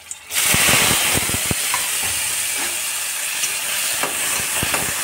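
Wet chopped sponge gourd flowers and greens hitting hot mustard oil in a kadhai: a sudden loud sizzle that crackles hard for about the first second, then settles into a steady frying hiss.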